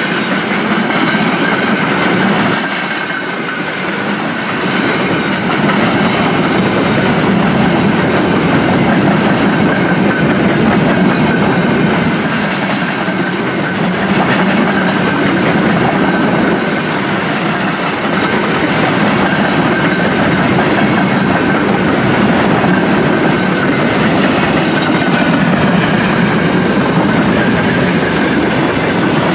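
Freight train of loaded container flat cars rolling past close by: a loud, steady rumble of steel wheels on the rails with a thin steady ringing tone above it.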